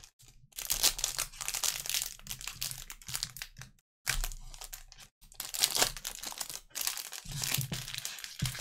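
Crinkling and rustling of clear plastic wrapping as gloved hands unwrap a trading card and slide it out, in uneven crackly bursts with brief pauses about four and five seconds in.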